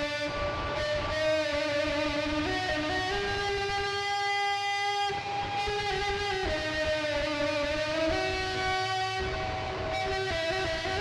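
Instrumental music: a melody of long held notes that step from pitch to pitch every second or two, over a steady low pulse.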